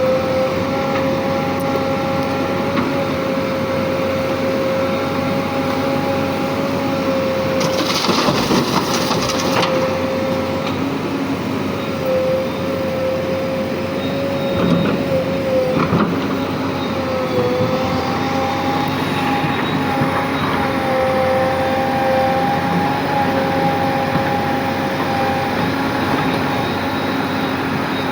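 JCB 3DX backhoe loader's diesel engine running steadily with a steady high whine. Its pitch sags briefly twice around the middle, as if under load, and a short hiss comes about eight seconds in.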